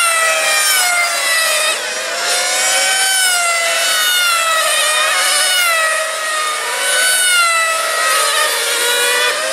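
Several 1/8-scale 4x4 nitro radio-controlled racing cars lapping the circuit, their small glow-fuel engines running at high revs. The pitch rises and falls over and over as the cars brake and accelerate, and more than one engine is heard at once.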